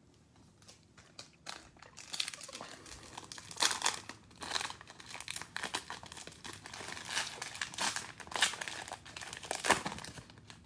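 Wrapper of a Prizm basketball card cello pack being torn open and crinkled by hand. It comes as a run of irregular crackles starting about a second and a half in, with the sharpest ones about four seconds in and near the end.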